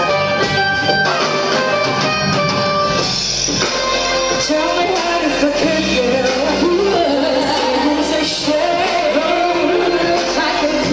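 Live band playing a song over a PA in a large hall: the first few seconds are instrumental, then a lead voice comes in singing over the band about four seconds in.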